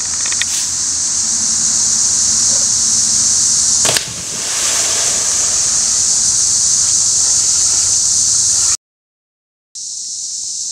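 Steady high-pitched chorus of insects, with a single splash about four seconds in as a person drops off a rope swing into a lake. The sound cuts out for about a second near the end.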